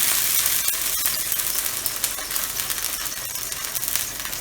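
Water sizzling and crackling on a hot iron barbecue plate, fading slowly as it boils off. The water was sprinkled on to bring down the plate's heat before the dosa batter goes on.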